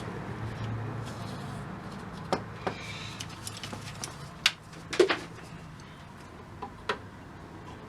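Scattered sharp clicks and taps of tools and small parts handled on a workbench, the loudest pair about five seconds in, over a steady low hum.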